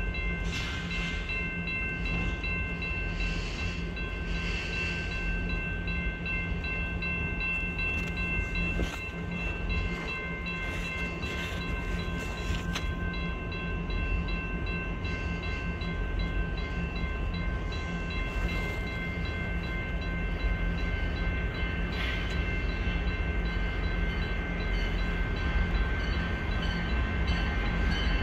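GTW GP38-2 diesel-electric locomotive, with its 16-cylinder two-stroke EMD engine, approaching at the head of a freight train: a steady low engine rumble that grows louder near the end, with steady high ringing tones above it.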